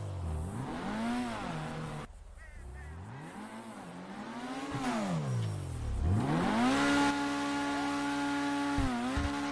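Sports car engine revving. Its pitch swoops down and back up several times, then climbs and holds steady at high revs, with a brief dip near the end.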